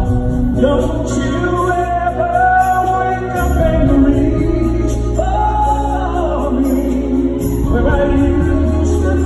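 Live R&B ballad: a lead singer holding long, gliding notes over the band's steady bass and keyboards, with backing vocals.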